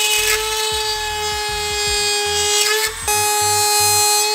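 High-speed power tool with a steady high whine, cutting through a carbon-fibre fender. The whine drops out briefly about three seconds in, then runs on.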